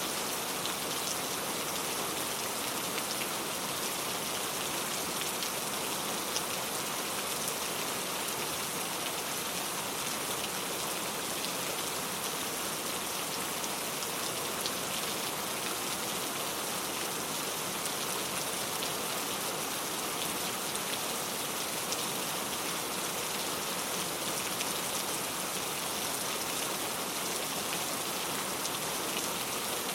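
Steady rain falling and pattering on a surface, an even hiss with light drop ticks throughout.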